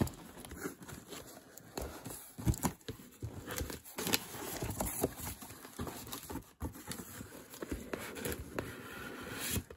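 Cardboard parcel being opened by hand: cardboard inserts and box flaps handled and set down, with crumpled brown packing paper rustling and irregular knocks and scrapes.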